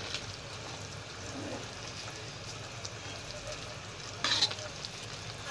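Cassava leaves in coconut milk sizzling and simmering in a stainless steel wok as a metal spatula stirs them. About four seconds in comes a brief, louder sound of a metal utensil against the wok.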